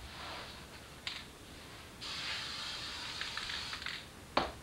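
Aerosol spray adhesive hissing from a can: a short puff about a second in, then a steady spray lasting about two seconds. A single sharp knock follows near the end.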